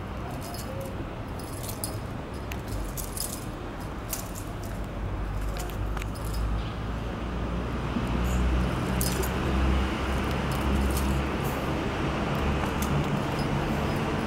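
Street ambience with a low traffic rumble that swells about halfway through, and scattered light metallic jingling clicks.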